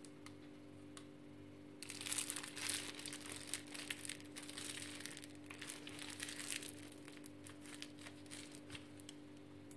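Faint crinkling and rustling of a plastic piping bag filled with whipped cream as it is handled, starting about two seconds in and going on in small bursts over a steady low hum.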